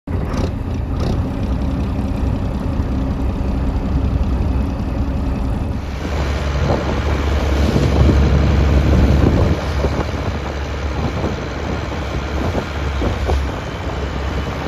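Small ferry boat's engine running steadily. About six seconds in, the boat is under way at speed, and the rush of its wake and wind noise join the engine.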